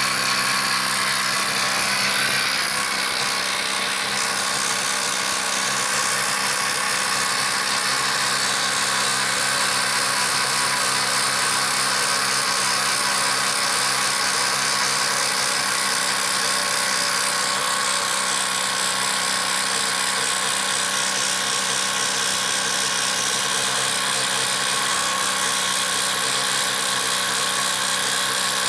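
HILTI 12-volt cordless impact driver hammering steadily under heavy load as it bores a 1¼-inch speed bore spade bit into wood.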